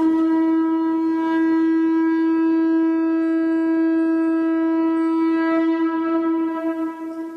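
One long, steady note blown on a horn-type wind instrument, rich in overtones, wavering and growing weaker near the end.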